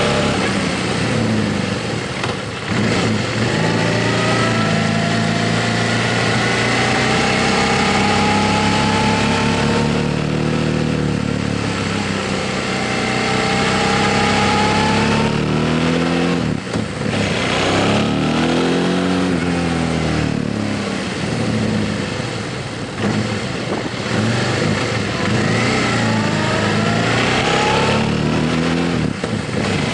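Motorcycle engine running under way, its pitch climbing as it accelerates and falling back briefly at several gear changes.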